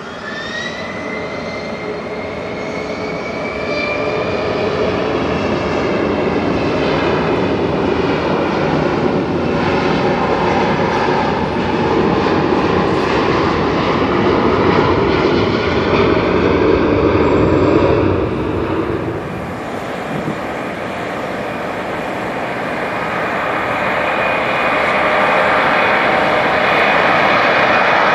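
Gulfstream G650 jet engines running at high power, with a turbine whine rising in pitch over the first few seconds over a steady rush of jet noise that grows louder. The sound changes character about 18 seconds in and then builds again.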